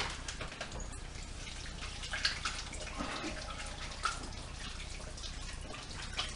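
Hot oil sizzling steadily in a frying pan, with a few light crackles and small knocks.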